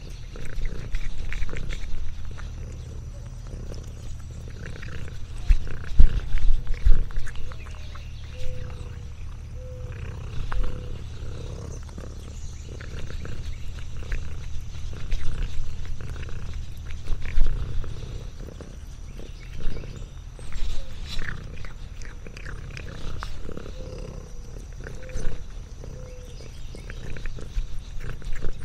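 Domestic cat purring close to the microphone, a steady low rumble, with louder bumps and rustles now and then.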